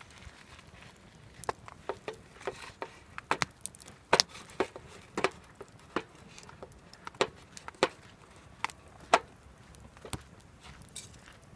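Wood fire crackling, with sharp irregular pops from burning firewood, about one or two a second.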